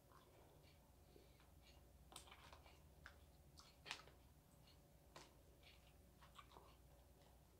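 Very faint mouth clicks and small crackles from a person eating sugar-straw candy, scattered through the quiet, with one sharper click about four seconds in.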